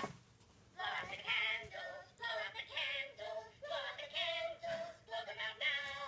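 Musical greeting card playing a recorded song with singing through its small tinny speaker, starting about a second in and running on in short rhythmic phrases.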